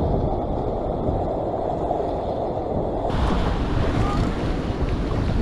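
Sea surf breaking and washing over rocks, with wind buffeting the microphone. The rush turns brighter and hissier about three seconds in.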